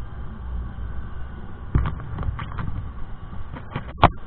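Low wind and road rumble from a moving scooter, heard on its action camera. From a little under halfway in come a few short knocks, with one sharp, loud knock near the end.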